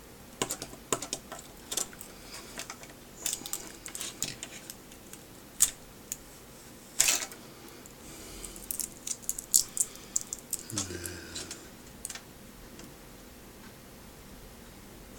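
Irregular light clicks and taps of small plastic electronic parts and tools being handled, as a pair of LCD video glasses is taken apart.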